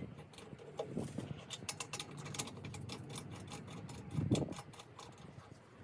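Rapid clicking of a hand ratchet or lug wrench working a wheel's lug nuts, with a dull thud about four seconds in.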